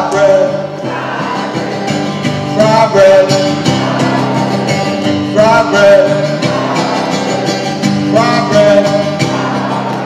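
Acoustic guitar strummed in a steady rhythm, with a man singing short phrases over it about every three seconds.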